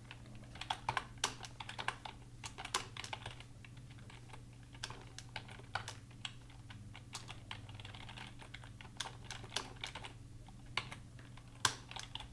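Typing on a computer keyboard: irregular key clicks in quick runs, over a faint steady low hum.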